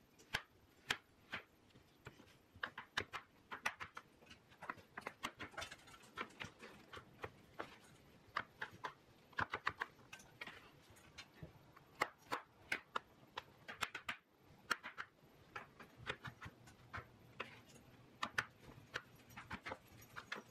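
Chef's knife dicing potatoes on a bamboo cutting board: faint, irregular knocks of the blade striking the board, often several a second.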